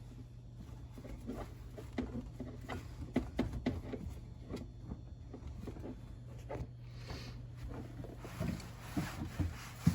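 Irregular light clicks and knocks from handling drain pipes and fittings under a kitchen sink, over a steady low hum.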